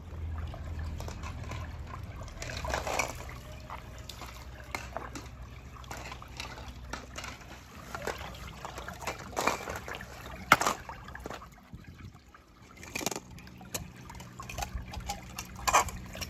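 Pool skimmer net moving through swimming-pool water and scooping out floating plastic eggs: splashing, trickling and dripping water with scattered sharp clicks, the sharpest about ten and a half seconds in.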